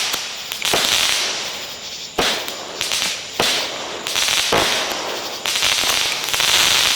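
Shelton's Night Blood multi-shot firework firing shot after shot: a sharp thump for each launch about once a second, with the stars breaking in a dense crackle between them.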